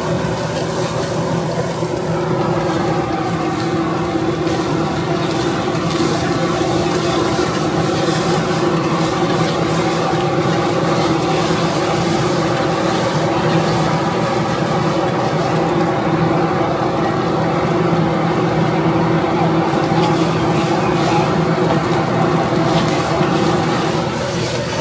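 Rice noodles sizzling on a hot flat iron griddle while metal spatulas scrape and tap across it, over a steady machine hum.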